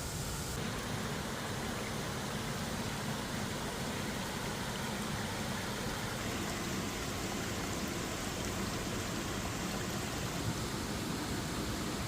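Steady rush of creek water falling and running over rocks, an even hiss with no distinct events.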